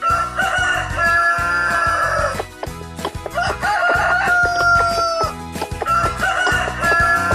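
Rooster crowing: two long cock-a-doodle-doo calls, with a third starting near the end, over background music with a steady beat.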